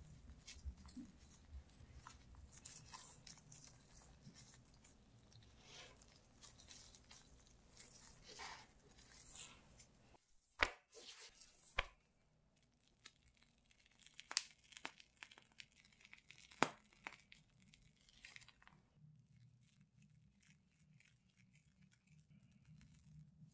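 Faint, soft rustling and squishing as gloved hands roll a thin crepe sheet around whipped cream and diced fruit. About halfway and a few seconds later come a handful of sharp clicks and taps, and near the end it turns quieter, with light handling of crepe sheets on a plastic mat.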